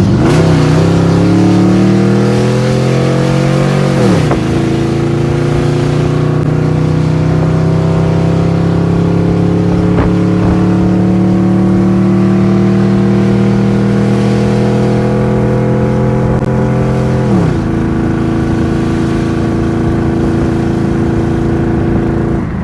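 A motor vehicle's engine pulling under load, its pitch climbing slowly. Twice the pitch drops sharply at a gear change, about four seconds in and again near the end.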